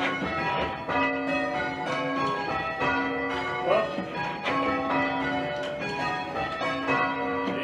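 A very light ring of six church bells, tenor just over 4 cwt, rung full-circle in changes: a continuous, evenly paced sequence of bell strikes, each note ringing on under the next.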